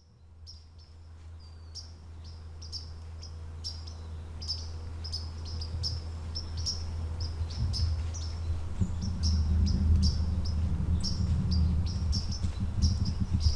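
Birds chirping, many short high calls in quick, irregular succession, fading in from silence. A low rumble underneath grows louder from about eight seconds in.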